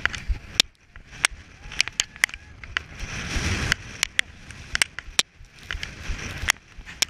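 A person moving through a packed-snow tunnel, giving irregular sharp knocks and scrapes of body, gear and camera against the snow. About three seconds in there is a longer shuffling rustle.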